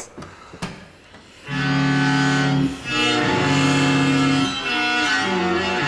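Yamaha SVC-110 electric cello bowed through heavy effects, playing long held notes with a dense, buzzy overtone sound; it comes in about a second and a half in and moves to new notes twice.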